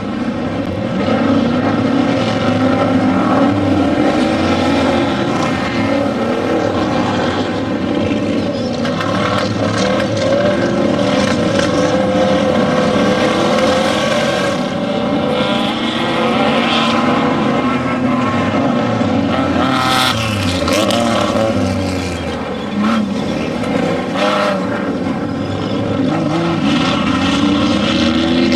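Off-road desert race vehicle engines running hard, the revs rising and falling continuously as the vehicles pass.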